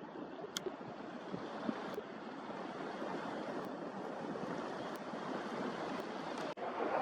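Sea surf washing against the shore as a steady rushing noise, with a few faint ticks and a brief drop-out near the end.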